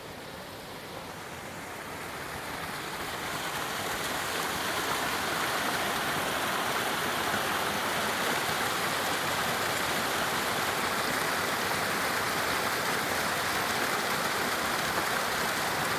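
Spring waterfall rushing, a steady wash of falling water that grows louder over the first four seconds and then holds steady.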